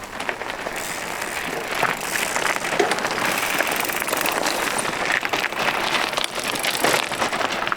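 Mountain bike tyres crunching over a rough trail surface, with many small clicks and rattles. The noise swells over the first second and then stays steady.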